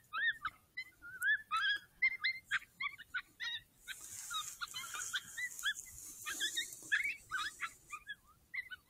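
Coyote yips and short howls: a fast, dense string of high, sliding calls, many overlapping.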